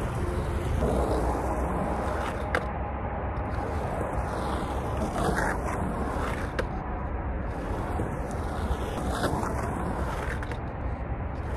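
Skateboard with 92A urethane wheels rolling over concrete, swelling and fading about every four seconds as the board rolls up the low transition and back down, with a few sharp clicks. Steady highway traffic noise runs underneath.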